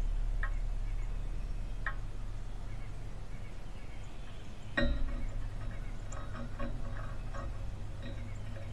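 Sharp clicks and taps of a northern cardinal pecking at seed on a wooden platform feeder: a few single taps, the loudest about five seconds in, then a quick cluster of taps, over a low steady hum.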